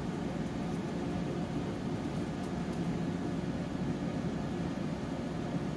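Steady low hum of room noise with no distinct events.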